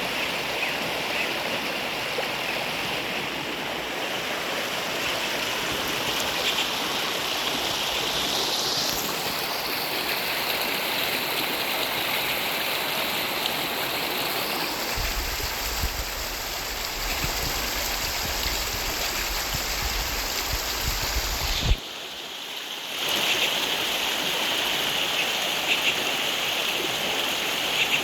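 Steady rush of running water during heavy rains, an even continuous hiss. A low rumble runs underneath for several seconds in the middle, and the sound drops out briefly about two thirds of the way in.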